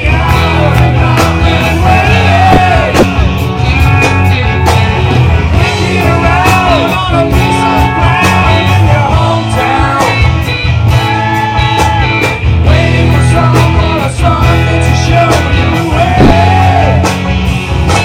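Rock song playing: a singer's voice over electric guitar and a steady bass line.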